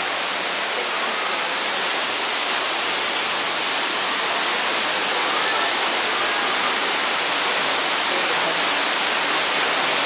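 Falling water rushing steadily, as from a waterfall.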